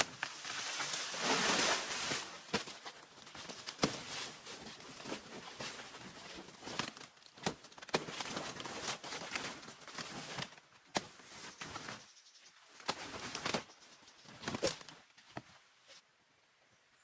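Rustling and crackling with many scattered sharp clicks and snaps, loudest near the start; it stops about a second before the end.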